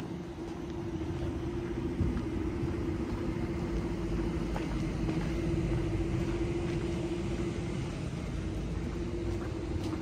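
Low rumble of city street traffic with a steady hum over it, and a single knock about two seconds in.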